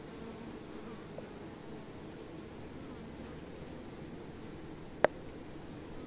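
Honey bees buzzing steadily in a low hum from a cluster on a branch, with a steady high whine above it and one sharp click about five seconds in.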